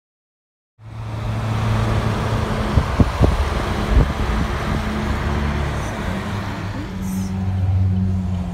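Car cabin noise while driving: a steady low engine drone and road noise, starting just under a second in, with a few sharp knocks around three and four seconds in.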